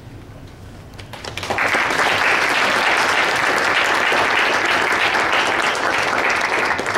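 Audience applauding, with a dense patter of clapping that starts about a second and a half in and stops just before the end.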